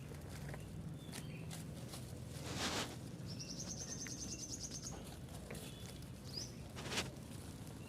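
Faint outdoor sounds: a bird gives a rapid, high trill of about a dozen short chirps near the middle, with a few single chirps later, and two brief rustling scuffles break in.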